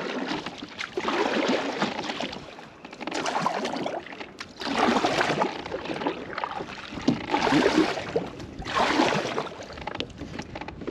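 Kayak paddle strokes in lake water: a repeated splashing swish, about one stroke every one and a half to two seconds.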